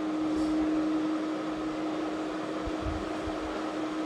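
A steady mechanical hum with one constant low tone over an even hiss, like a running fan, with a few soft low thuds near the middle.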